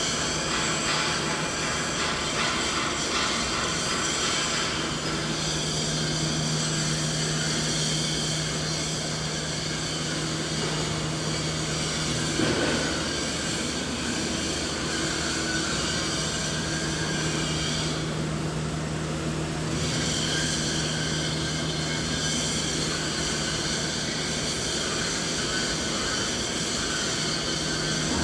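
Steady machinery drone: a continuous low hum under an even hiss. There is a small blip about halfway through, and the high hiss thins briefly about two-thirds of the way in.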